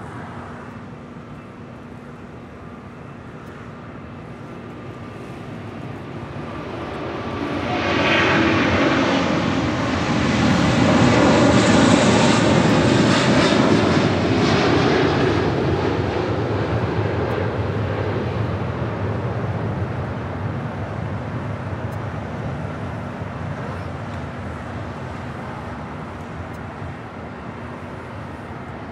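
Airbus A380 taking off at full thrust: the jet engine noise builds over several seconds, is loudest about ten to fifteen seconds in as the aircraft lifts off, then slowly fades as it climbs away.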